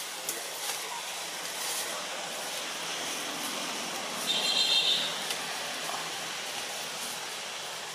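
Steady outdoor hiss with a few faint clicks, broken about four seconds in by one brief high-pitched call, the loudest sound.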